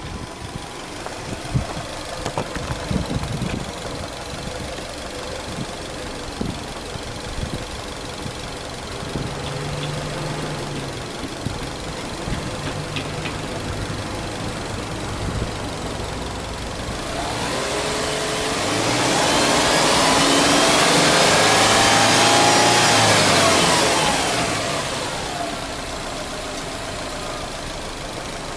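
2004 Subaru Legacy 2.0 GT spec.B's turbocharged EJ20 flat-four idling with the bonnet open. It is free-revved once, rising about halfway through, held up for several seconds, and dropped back to idle.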